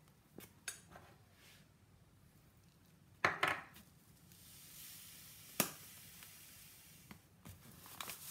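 Kitchen handling sounds: a paper bag of jam sugar crinkling and crockery knocking on the worktop. There are several sharp knocks, the loudest a cluster about three seconds in and a single one a little past halfway.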